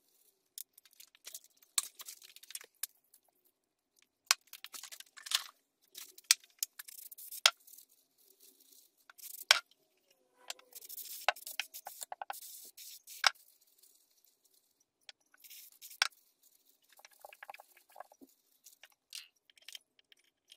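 Small metal parts of a Bosch K-Jetronic fuel distributor being handled by gloved hands: scattered light clicks and clinks of metal set down on a towel and wooden bench, with soft rustling in between.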